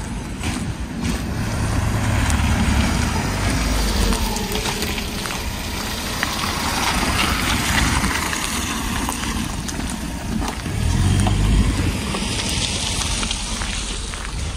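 Street traffic: motor vehicles driving past close by, their engine rumble swelling twice over a steady wash of road noise.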